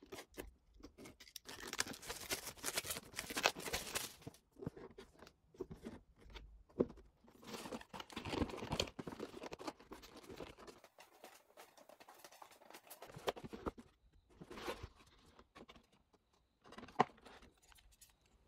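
Unboxing sounds: plastic shrink-wrap tearing and crinkling, a cardboard sleeve sliding off a box, and the box and its insert being handled, in irregular rustles with light clicks and knocks and a few short pauses.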